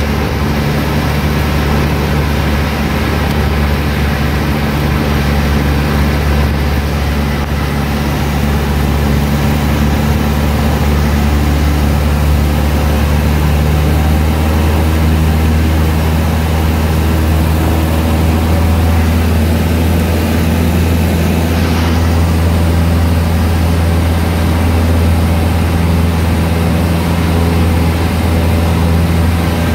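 Cessna 152's four-cylinder Lycoming O-235 engine and propeller heard from inside the cockpit, a steady loud drone during a low pass over the runway. It gets a little louder about ten seconds in.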